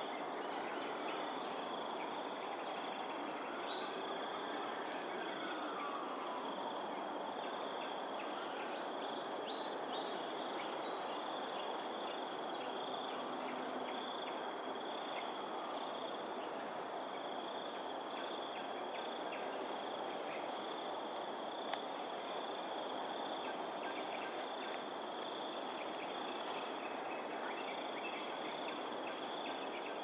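Steady chorus of insects, their shrill drones running unbroken, with a few faint, short bird chirps now and then.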